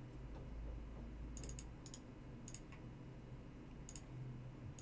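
A handful of light computer mouse clicks, irregularly spaced and some in quick pairs, over a low steady hum.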